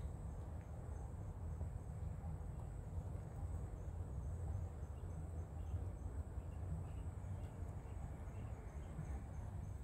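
Outdoor ambience: a steady low rumble under a faint, thin, high insect buzz with evenly repeating ticks.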